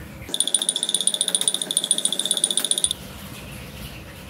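A high-pitched electronic alarm buzzer pulsing rapidly for about two and a half seconds, starting just after the start and cutting off suddenly.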